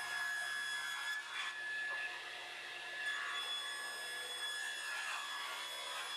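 Table saw running with a steady whine as a gum-wood board is ripped to finish width along the fence.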